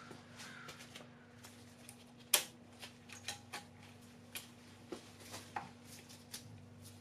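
Scattered light metallic clicks and taps, the sharpest about two and a half seconds in, as coil-spring compressors and their locking safety pins are handled on a strut's spring. A faint steady hum lies underneath.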